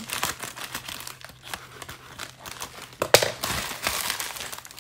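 Scissors cutting through a plastic poly mailer bag, with the plastic crinkling in short sharp snips and rustles. About three seconds in comes a louder rip and rustle as the bag is pulled open by hand.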